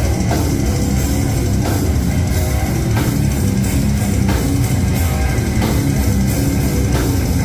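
Heavy, distorted rock music in a metal style: electric guitars and a drum kit playing at a steady driving beat, loud and unbroken.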